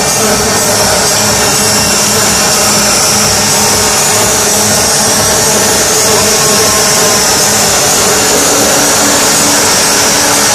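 Loud club techno on a nightclub sound system, recorded through a phone microphone and dominated by a steady, noisy high hiss in the track.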